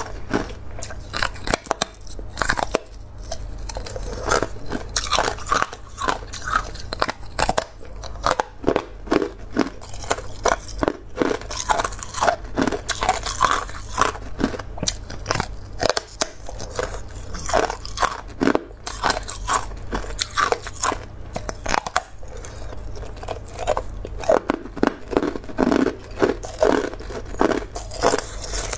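A person biting into and chewing hard ice, a thin frosted disc frozen in a mould, making rapid, irregular crunches one after another.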